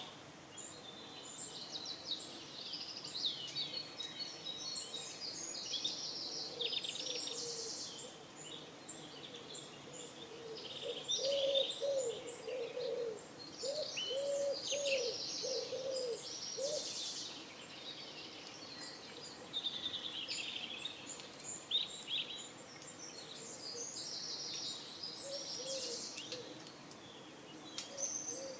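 Several small birds chirping and trilling in high notes throughout, and a pigeon cooing in a run of about seven low notes in the middle.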